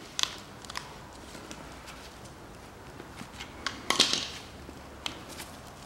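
Light clicks and knocks of a Land Rover Discovery 3 spare-wheel winch's greased cable drum and housing being handled, with a louder scraping clatter about four seconds in as the drum is lifted against the housing.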